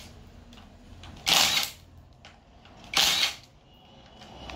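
A power tool running in two short bursts about a second and a half apart, spinning the nuts off the bus bars of a hybrid battery pack.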